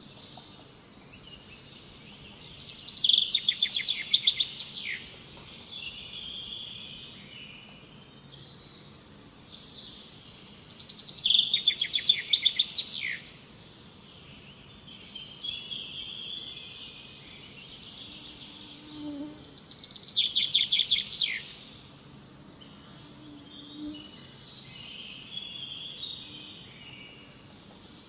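A bird singing: three loud, rapid trilled phrases about eight seconds apart, each lasting about two seconds, with softer chirps between them.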